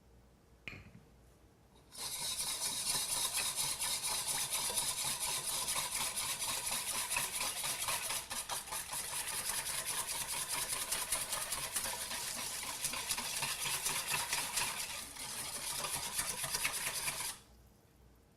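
Liquid salad dressing being stirred briskly in a bowl: a fast, continuous rattling scrape that starts about two seconds in, runs for about fifteen seconds and stops abruptly, after a single light knock near the start.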